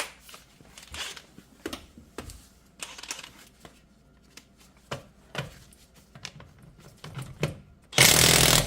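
Metal clicks and knocks as a 21 mm impact socket and wrench are handled and fitted, then near the end an impact wrench runs in one short, loud burst, hammering the socket to break a nut loose.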